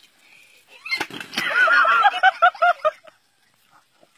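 High-pitched laughter: a burst of rapid 'ha-ha-ha' pulses, about four or five a second, starting about a second in and stopping a second before the end.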